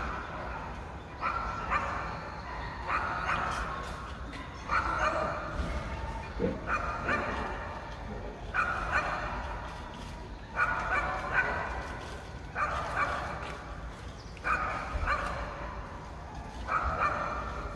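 A pet dog left alone in an apartment while its owner was out, barking over and over in pairs of barks about every two seconds.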